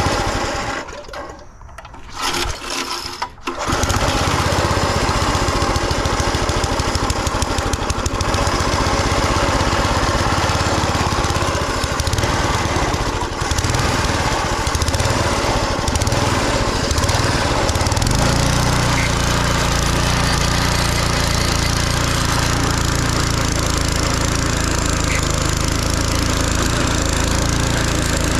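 Small gasoline engine of a garden tiller fading out soon after the start, sputtering, then catching again and running steadily at speed. About two-thirds of the way through, its note settles into a steadier, deeper drone.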